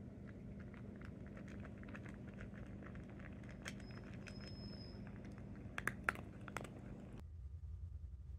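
A cat crunching dry kibble from a bowl: a run of small, irregular crunching clicks, with a few louder clicks about six seconds in. The crunching stops about seven seconds in, leaving a faint low room hum.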